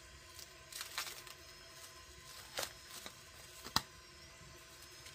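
Kitchen knife and sausage handled on a wooden cutting board: a few faint scrapes and taps, the sharpest a click a little before four seconds in.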